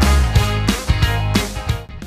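Background music with a steady beat of about three strikes a second, cutting off just before the end.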